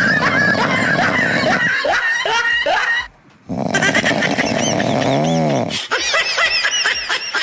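Laughter, in two stretches broken by a short pause about three seconds in.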